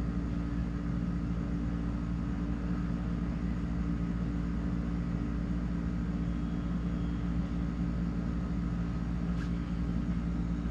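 Steady machine hum made of several even tones over a low rumble, unchanging throughout, with one faint click about nine seconds in.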